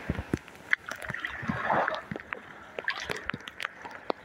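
Small waves of surf washing up over the sand and draining back, with scattered sharp taps and clicks.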